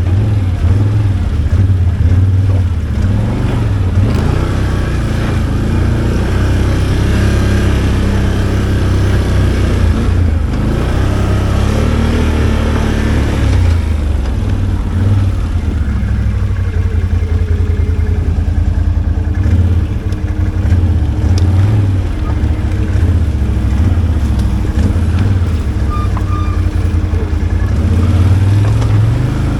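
V-twin ATV engine running under throttle, its revs rising and falling again and again as it crawls over rough trail.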